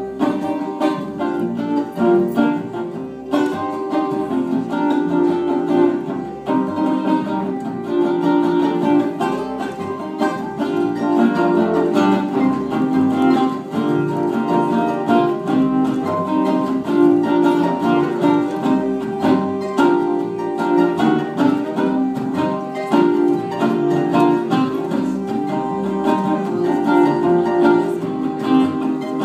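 Live acoustic instrumental music led by plucked guitar strings, playing continuously without singing.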